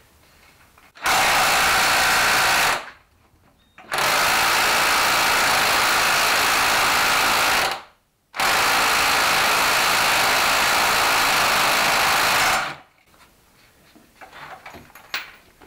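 Electric impact wrench (rattle gun) hammering at a 27 mm gearbox sprocket nut to undo it, in three long runs of about two, four and four and a half seconds with short pauses between.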